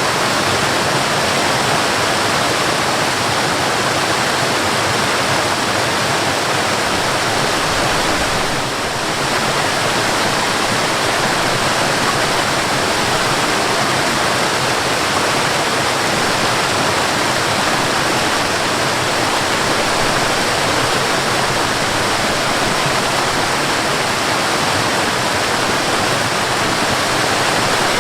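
Waterfall: steady, loud rushing of falling water, with a brief slight dip in level about nine seconds in.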